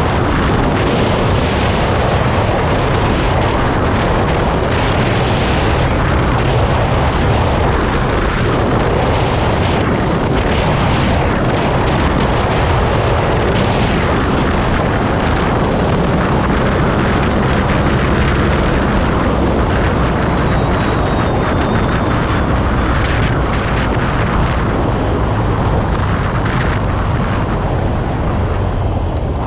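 BMW R nineT Urban G/S's air/oil-cooled boxer twin running steadily while riding, mixed with heavy wind noise on the microphone.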